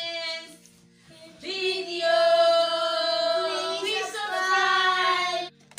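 A woman and several children singing out long, drawn-out notes together: one note tails off about half a second in, then a louder held note lasts about four seconds and stops abruptly. Soft background music plays underneath.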